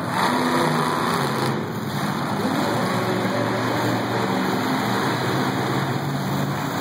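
Monster truck engines running steadily at low revs, a continuous low engine note with little change in pitch.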